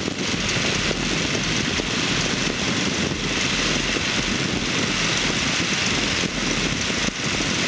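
Microlight aircraft's engine and propeller running steadily in level flight, heard from inside the cockpit.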